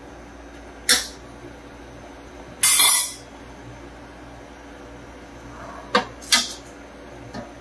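Metal ladle clinking against a stainless steel pan, once about a second in and twice around six seconds, with a short hissing splash near three seconds as a ladleful of broth goes onto the kale in the hot pan. A steady low hum runs underneath.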